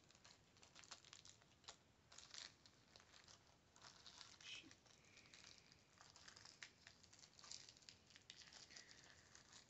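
Faint, scattered crinkling and tearing of an old, unopened baseball card pack's paper wrapper as it is picked open by hand through a small hole.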